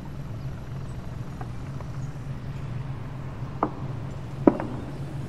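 A ship's engine running with a steady low hum, with a few sharp knocks on top. The loudest knock comes about four and a half seconds in.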